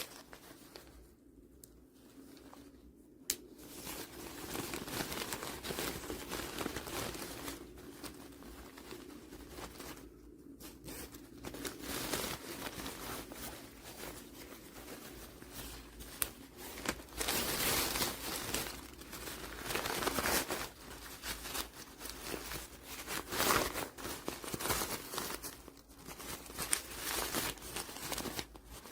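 Crinkling, rustling handling noise, as of soft material being moved and crumpled close to the microphone, in irregular bursts that grow busier about four seconds in.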